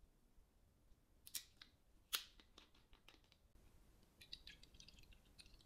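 Plastic makgeolli bottle cap twisted open with a couple of sharp clicks, then makgeolli poured into a bowl with a faint trickle.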